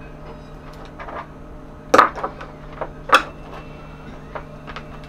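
Multimeter test leads and crocodile clips being handled and clipped onto a small battery circuit: small clicks and knocks, with two louder sharp clicks about two and three seconds in.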